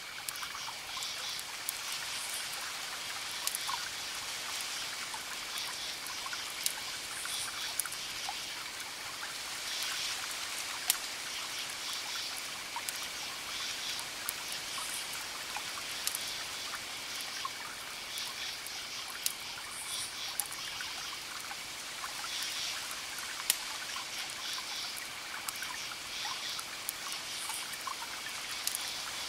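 Wood fire crackling: a steady hiss with scattered sharp snaps and a few louder pops. Short high chirps recur every few seconds behind it.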